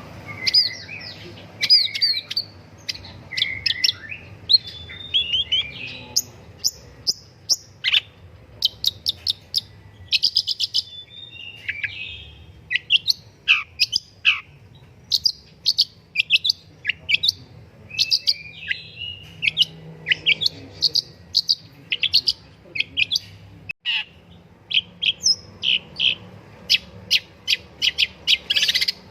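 Long-tailed shrike singing a fast, varied song of short chirps, trills and whistled notes with barely a break, some notes sliding down in pitch.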